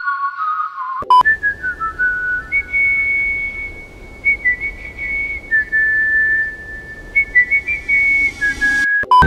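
Whistled melody from a K-pop song. A short whistled phrase runs for about the first second. After a click, a longer tune of held notes with short slides plays over faint hiss and cuts off suddenly near the end.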